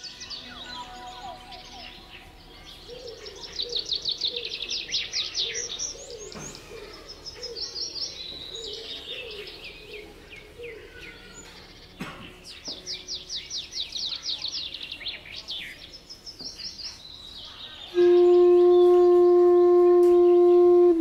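Recorded forest soundscape of songbirds singing: repeated fast trills of high notes, with lower calls beneath. About three seconds before the end, a loud steady held instrumental note comes in.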